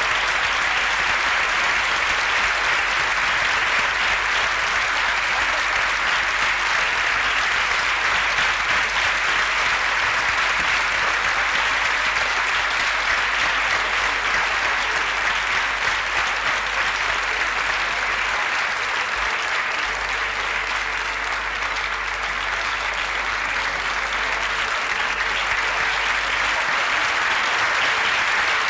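Theatre audience applauding steadily, a dense even clapping without pause.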